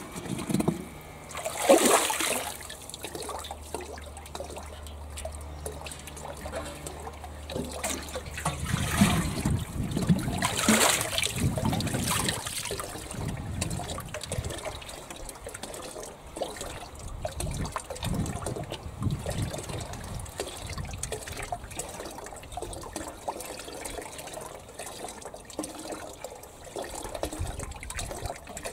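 Water splashing and gurgling as a metal watering can is dipped into a galvanised steel water tank and filled, loudest about two seconds in and again around ten seconds in, then trickling and lapping as the water in the tank settles.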